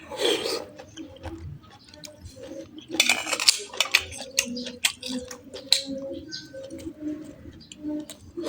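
Close-miked eating sounds: chewing and mouth clicks with cutlery clinking against a plate, loudest in two bursts, near the start and about three seconds in.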